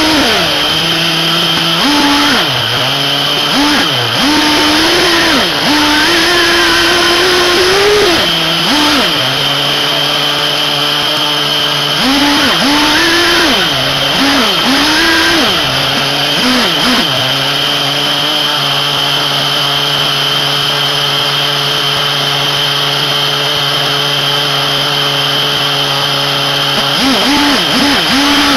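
The SH PT21-P3 3.48 cc nitro glow engine of a 1/8-scale RC buggy, revving up and easing off again and again, then holding a steady note for about ten seconds before revving again near the end. A steady high whine runs underneath.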